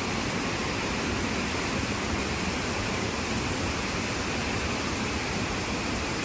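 Heavy monsoon rain falling, a steady even hiss.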